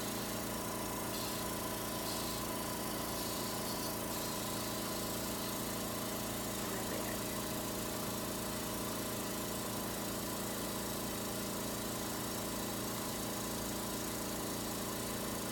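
Steady hum of running respiratory equipment, a motor drone with several fixed tones. In the first few seconds a faint hiss comes and goes: intermittent suction through a catheter.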